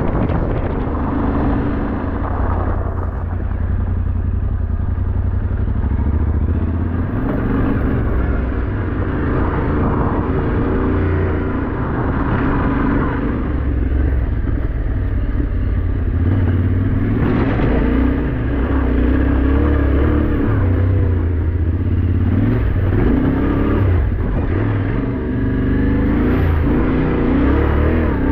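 Yamaha Ténéré 700's parallel-twin engine running while the bike is ridden, its pitch rising and falling with the throttle, over a steady low rumble.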